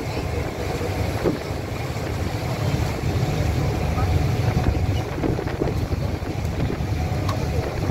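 A boat's engine running with a steady low rumble, with wind on the microphone.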